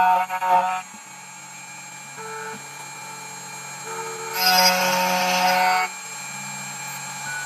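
2M2 Tank CNC key cutting machine cutting a HU64 key blank: a steady motor hum, with a louder, noisier stretch of cutting lasting about a second and a half near the middle.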